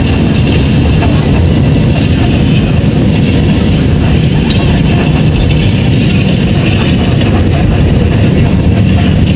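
Steady rumble of a moving road vehicle, its engine and road noise heard from on board, loud and unbroken.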